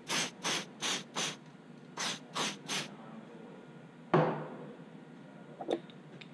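Compressed-air blow gun firing about eight short blasts, five in quick succession and then three more, blowing metal chips off a milling machine vise. About four seconds in comes a single loud knock, the loudest sound here.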